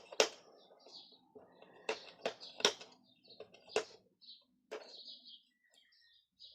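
A taped sewing-kit package being handled and opened: a few sharp clicks and taps, irregularly spaced. Faint short bird chirps are heard from about halfway on.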